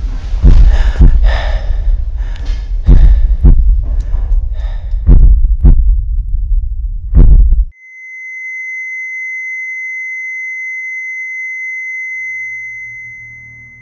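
Loud heartbeat sound effect: heavy beats, several in close pairs, over a deep rumble. About eight seconds in it cuts off suddenly and gives way to one steady high electronic tone, a heart-monitor flatline, which fades out near the end.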